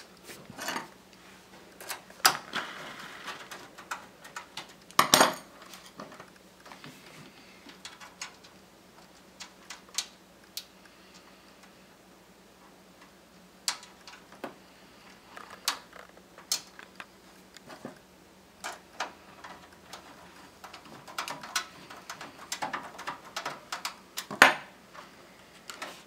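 Scattered metallic clicks, clinks and knocks of screws, a screwdriver and a power supply being handled and screwed into the back of a steel PC case. A few louder knocks stand out, the loudest about five seconds in and near the end.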